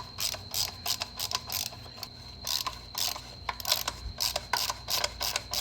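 Irregular mechanical clicking and rattling, about three or four clicks a second, from outboard motor parts being handled and worked by hand.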